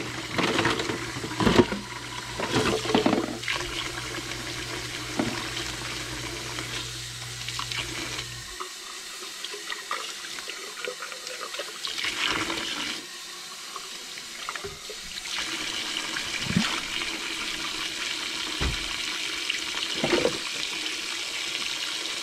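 Kitchen faucet running steadily into the sink, with scattered knocks and clinks of dishes being handled in the water.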